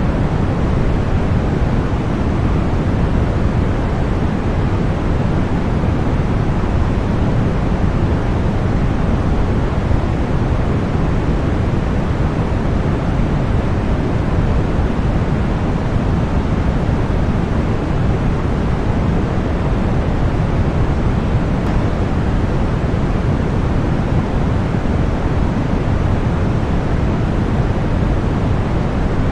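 Continuous synthetic white noise for sleep and tinnitus masking: an even, unchanging hiss, heavier in the low end than at the top.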